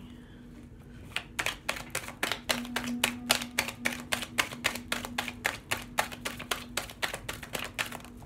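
A tarot deck being shuffled overhand, the cards slapping together in quick sharp clicks, about five a second, starting about a second in.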